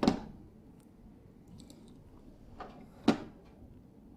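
Two short, sharp knocks: one right at the start that dies away over a fraction of a second, and one about three seconds in, with faint room noise between.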